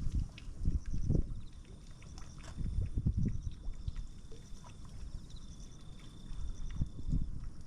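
Strong wind buffeting the microphone in gusts, with a thin, steady high-pitched buzz carrying on behind it.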